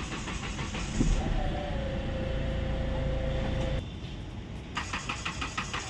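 Hyundai Verna Fluidic diesel engine being cranked by its starter motor without catching: a steady starter whine, a short pause about four seconds in, then rapid rhythmic cranking again. This long crank before starting is the late-start fault, which the mechanic traces to a cut crankshaft position sensor wire.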